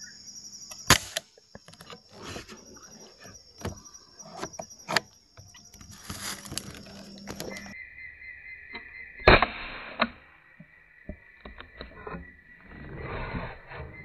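Two sharp air rifle shots, one about a second in and one after about nine seconds. Each is followed by a lighter click, over a steady high-pitched background drone.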